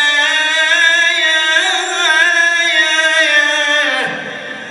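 Man singing a long, held, ornamented vocal line in Arabic religious chant style, the pitch wavering slightly and the voice fading out near the end.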